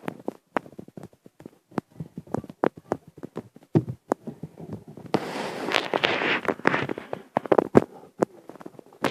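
A cat licking a plush toy close to the microphone: irregular rasping clicks of the tongue. About five seconds in they run together into a denser rustle for about three seconds.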